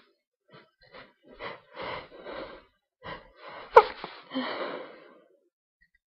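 A person's sneeze build-up: a series of short, catching in-breaths that grow louder, then one sharp, loud sneeze nearly four seconds in, followed by a trailing exhale.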